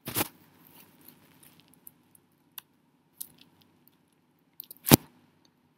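A few scattered computer keyboard keystrokes: a sharp click at the start and another about five seconds in, with faint ticks between.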